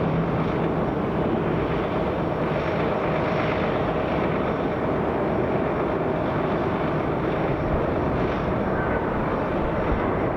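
Jet engines of a Boeing 737-400, with CFM56 turbofans, arriving to land. The noise is a steady rumble with a faint held tone in it, unchanging throughout.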